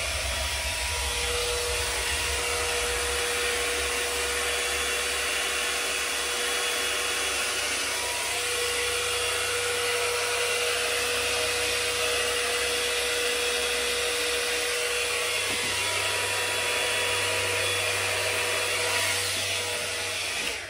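Handheld hairdryer running steadily, blowing wet pour paint across the canvas: a steady hiss with a whine, switched off near the end.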